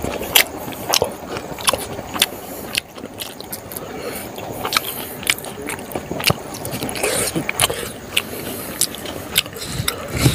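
Close-up eating sounds of a person chewing a mouthful of rice and smoked pork: wet lip smacks and sharp mouth clicks at irregular intervals, a couple per second.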